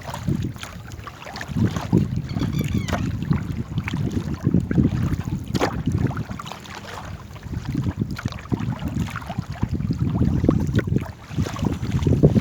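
Wind buffeting the microphone in uneven gusts, with water sounds and occasional knocks from a small paddled boat.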